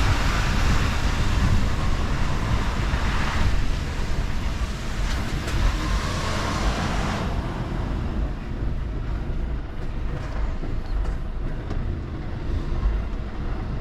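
Mercedes Actros L truck's diesel engine and road noise while driving: a steady low rumble with a hiss over it that fades about seven seconds in.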